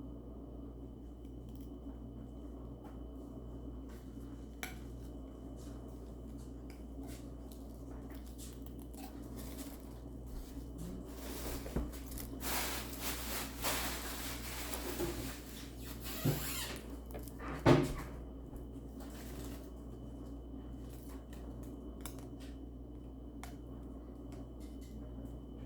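Toy packaging being handled and worked at, quiet at first, then around the middle several seconds of crinkling and rustling with a few sharp clicks. A steady low electrical hum runs underneath.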